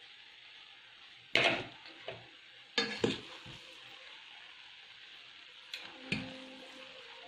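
Rice noodles sizzling softly in a pot on the stove while being tossed and stirred with a utensil. The utensil knocks and scrapes against the pot several times, loudest about a second and a half in and again around three seconds in.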